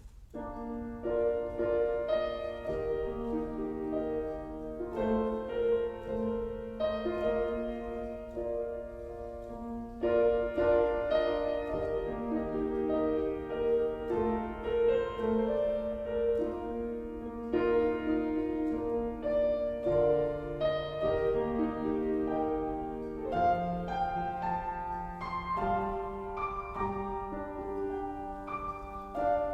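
Solo piano playing a slow, calm instrumental passage of chords and melody notes, with no singing.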